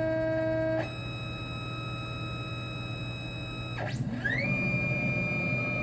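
Formlabs Form 4 resin printer's motors whining in steady tones, stepping to a new pitch about a second in. Near the end a whine glides up, holds, and glides back down as the build platform moves at the end of the print.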